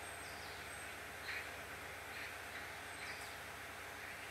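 Outdoor ambience: a steady low hiss and hum with a few short, high bird chirps scattered through it, about four in all.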